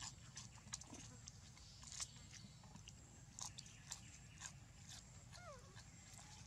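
Faint, scattered crunches and clicks of macaques biting and chewing food, with light rustling in dry leaf litter.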